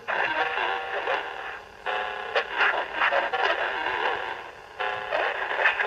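FM broadcast on 100.1 MHz carrying Mexican music that comes through badly distorted, thin and buzzy, like an 8-bit video game tune. The sound drops out briefly twice. The listener blames poor transmitter quality, saying it sounds like an AM signal although it is on FM.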